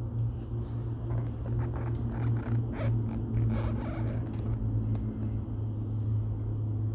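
Wood fire burning in a TMF Vizera fireplace: a steady low rumble with scattered crackles and clicks, most of them in the first four seconds or so.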